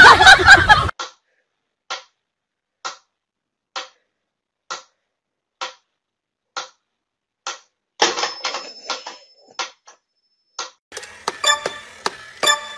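Pyramid-shaped mechanical metronome ticking steadily, about one tick a second, after a short loud burst of noise at the very start. Near the end, denser rapid clicking with a whirr from a battery toy soldier crawling on a wooden floor.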